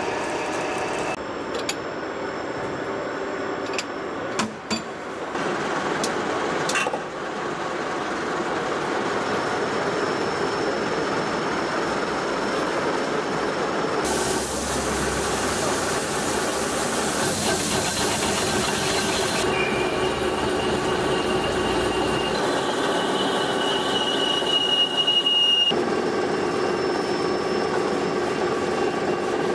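Machine-shop noise from CNC lathes turning carbon-steel flanges: a steady mechanical hum with a few sharp clicks at first, a loud hiss about halfway, then a high steady squeal from the cutting tool on the steel.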